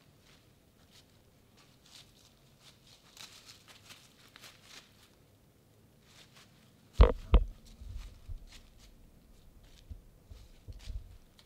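Faint rustling and ticks, then two sharp knocks close to the microphone about seven seconds in, followed by low rumbling and a few softer thumps, as of the camera being handled and re-aimed.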